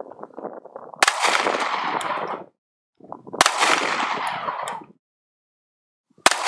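.40 calibre gunshots fired at a Kevlar-panelled car door, three shots about two and a half seconds apart. Each sharp crack is followed by a long rumbling tail that cuts off abruptly.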